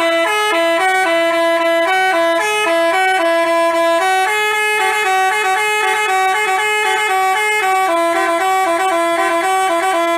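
Basuri telolet multi-tone bus air horn playing a fast, jingly tune: short notes stepping up and down several times a second, with several tones sounding together.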